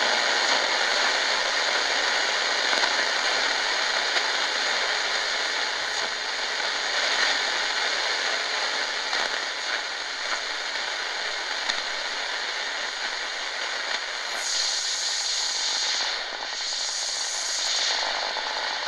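Tecsun GR-138 portable radio's speaker giving out a steady rushing hiss from a shortwave signal, probably a digital data-mode transmission rather than a voice broadcast. About three-quarters of the way in, a faint high whistle sweeps down and then back up.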